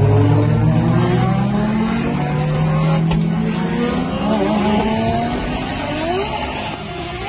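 Car engine accelerating hard, heard from inside the car: its pitch climbs steadily, dips about three seconds in, then climbs again faster.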